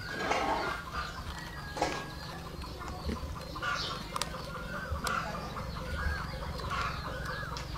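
Birds calling around the house: many short, high calls that rise and fall and repeat throughout, with a few sharp clicks and knocks.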